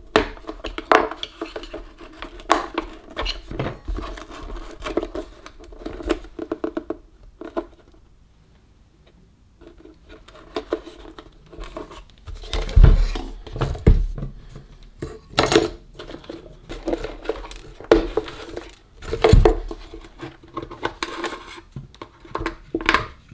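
A thin metal pry tool scraping and levering at a plastic control panel set into an MDF radio case, with clicks and knocks as the panel and parts give and are lifted out. A quiet pause about a third of the way in, then sharper knocks in the second half.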